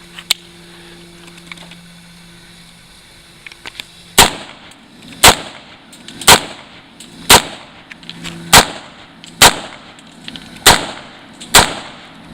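AR-15 rifle fired semi-automatically, eight sharp shots about one a second starting about four seconds in: the first rounds through a newly built rifle, cycling without a hitch. A steady low hum runs underneath.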